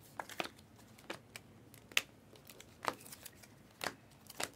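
Trading cards being flipped through one at a time, a short sharp snap as each card is slid off the stack, about one a second.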